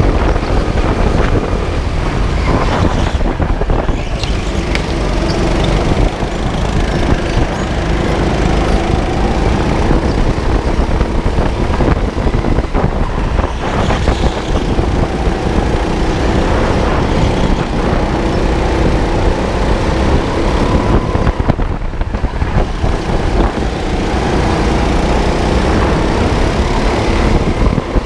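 Go-kart running flat out around a track, its motor pitch rising and falling with throttle through the corners, over a heavy low rumble of wind and vibration on the onboard microphone.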